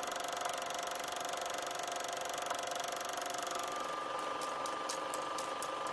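A small machine running steadily with a whirring hum. A little after three seconds its pitch steps up, and from about four seconds in a fast ticking joins it, about five clicks a second.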